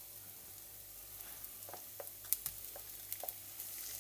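Chopped garlic frying in a little olive oil in a nonstick pan: a soft, steady sizzle with scattered sharp pops and crackles, more of them from about a second in.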